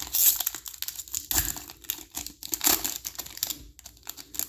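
Plastic wrapper of a 2021 Chronicles football trading-card pack crinkling and tearing as it is ripped open by hand, in irregular crackles with louder bursts about a quarter second, one and a half seconds and near three seconds in.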